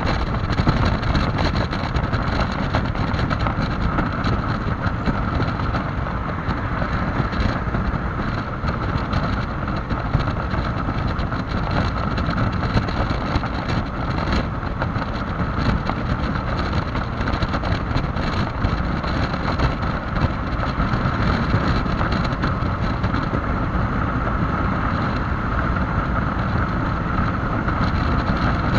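Steady, loud wind noise buffeting the microphone as a Yamaha XMAX 300 scooter is ridden at top speed. The scooter's engine runs underneath.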